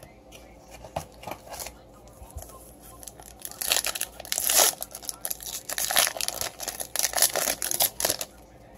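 Foil trading-card pack torn open and crinkled by hand: a few light handling clicks, then from about three and a half seconds in a run of loud crackling tears and crinkles that stops shortly before the end.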